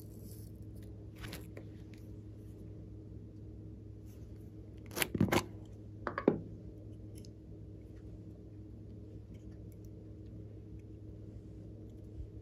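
Small plastic containers handled on a table: a quick cluster of sharp plastic clacks about five seconds in and another clack about a second later, with faint light ticks of handling between them. A steady low hum runs underneath.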